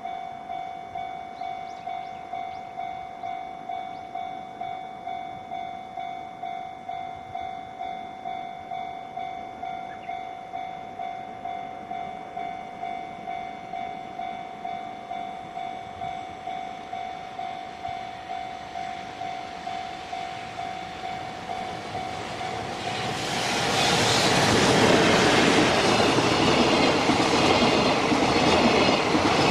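A Japanese level-crossing warning bell rings steadily at about two strokes a second. About three-quarters of the way through, a freight train comes through the crossing, an EF210 electric locomotive hauling flat wagons of long rails. Its loud rolling noise and wheel clatter cover the bell.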